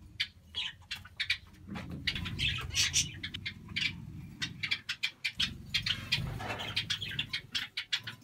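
A flock of zebra finches calling: a rapid run of short, high chirps, with a low rumble underneath from about two seconds in.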